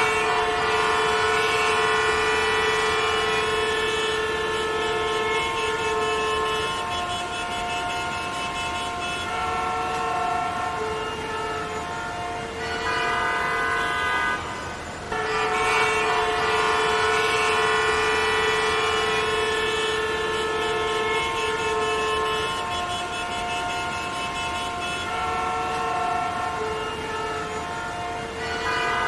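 Many car horns honking at once in a traffic jam: long, overlapping held blasts at different pitches, sounding almost without a break, with a brief lull about halfway through.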